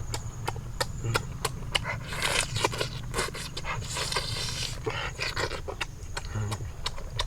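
Irregular sharp clicks and knocks, with two short bursts of scraping, rasping noise about two seconds and four seconds in.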